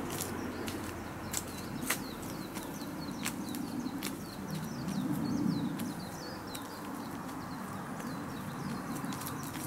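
Small birds chirping over a steady low outdoor rumble, with scattered sharp clicks.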